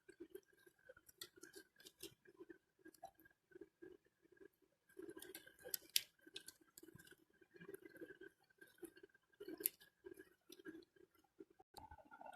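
Slime being squished and worked by hand: faint, irregular sticky clicks and crackles, with a couple of slightly louder pops.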